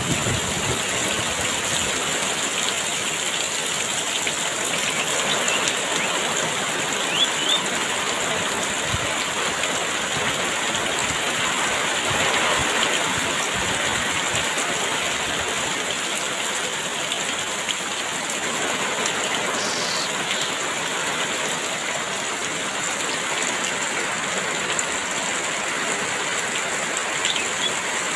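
Heavy rain falling steadily, a dense even hiss, with a few faint short chirps of birds.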